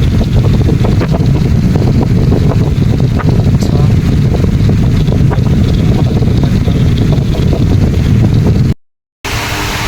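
Air from an electric fan buffeting the microphone: a loud, steady low rumble. It cuts out abruptly near the end, then a quieter hum with a faint tone follows.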